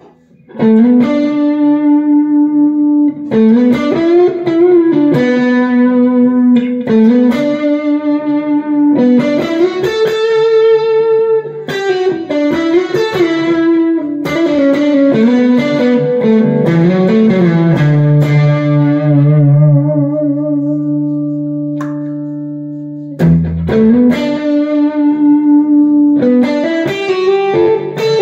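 Harley Benton Fusion electric guitar with alnico pickups played through an amplifier: a slow melody of sustained single notes with string bends and vibrato. About two-thirds of the way through, one low note is held for several seconds and left to fade before the playing picks up again.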